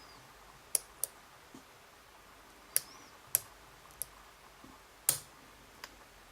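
Lock pick working the pins of a challenge lock: about seven short, sharp metallic clicks at uneven intervals as pins are pushed and set.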